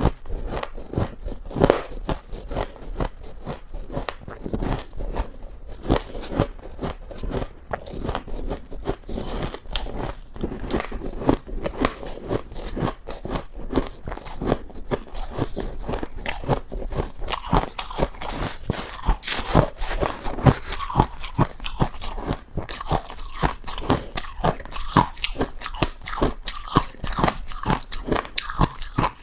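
Close-miked crunching and chewing of a mouthful of powdery freezer frost: a dense, unbroken run of small crisp crunches that grows louder and sharper about halfway through.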